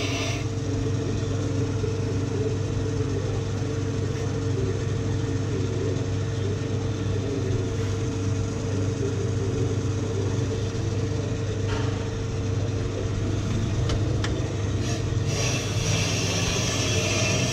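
Ammco 4000 brake lathe running steadily with a brake rotor spinning on its arbor, a constant motor hum with a steady tone over it, skimming the glazed rotor face. A brighter hiss comes in near the end.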